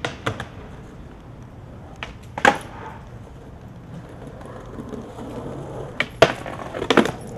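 Skateboard wheels rolling on pavement, with several sharp clacks of the board: one about two and a half seconds in and a cluster of them near the end.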